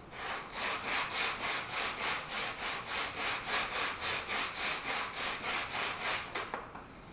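A 3/16-inch ABS plastic sheet rubbed by hand on coarse sandpaper (belt-sander belts glued flat to a desk), with even, rapid back-and-forth rasping strokes. The edge is being sanded flat to take out a low spot before solvent welding. The strokes stop near the end.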